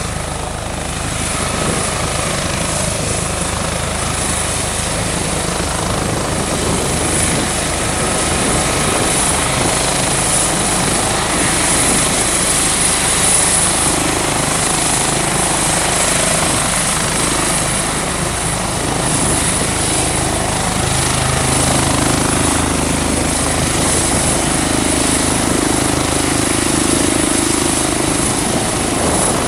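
Airbus H145 (EC145 T2) twin-turbine helicopter hovering low and slowly climbing: a loud, steady rotor and turbine sound with a high, steady whine above it.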